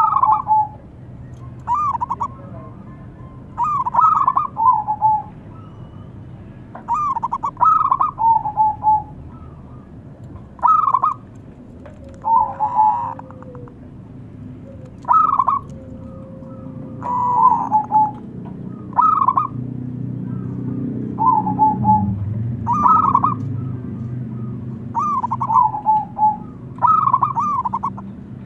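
Zebra dove (perkutut) singing: short bouts of rapid, rolling cooing notes, repeated about every one to two seconds.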